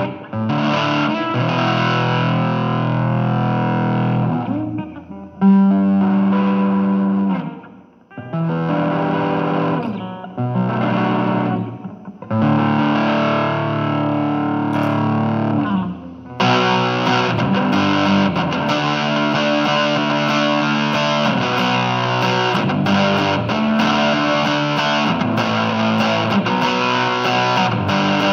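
Telecaster-style electric guitar played through a Blackstar ID Core 100 2x12 combo amp with effects: a run of held chords with short breaks between them, then continuous, busier playing from about two-thirds of the way in.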